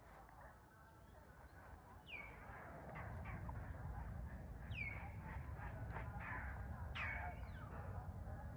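Short, high animal calls, each swooping down in pitch, repeated about every two to three seconds over a low rumble.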